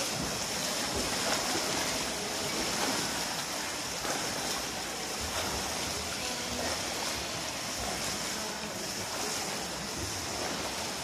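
Steady rushing water noise of a swimmer sprinting close by in a pool, his arm strokes and kick splashing the surface, blended with the echoing wash of the pool.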